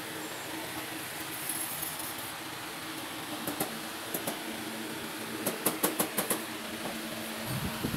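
Steady hum of a fan, with a run of light, sharp clicks a little past the middle.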